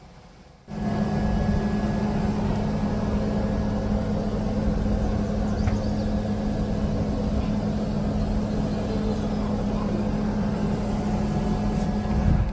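A steady mechanical drone, like a motor running, with an even low hum. It starts abruptly about a second in and cuts off abruptly at the end.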